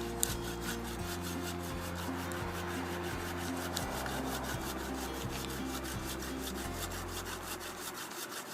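A saw cutting through the trunk of a Christmas tree: steady, rapid back-and-forth strokes rasping through the wood.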